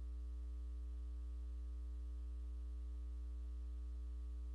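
Steady electrical mains hum in the audio feed: a low, unchanging drone with a stack of fainter buzzing tones above it.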